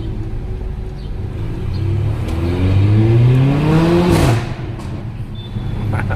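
Mercedes-AMG GLA 45's turbocharged 2.0-litre four-cylinder accelerating: the engine note climbs for about two seconds, then drops abruptly with a short burst from the exhaust about four seconds in as it shifts up, and settles to a steady lower drone.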